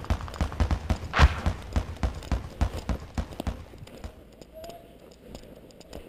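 Running footsteps picked up by a body-worn action camera: quick, even thuds about four to five a second, with a louder rush of noise about a second in. The steps fade out after about three and a half seconds.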